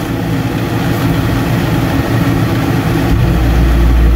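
RV air conditioner running loud, a steady mechanical hum; a deeper, stronger drone comes in about three seconds in.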